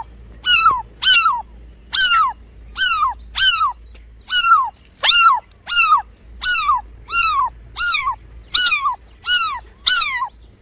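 A cat giving a long run of short, high-pitched calls, about fourteen at an even pace of roughly one every 0.7 seconds, each one falling in pitch.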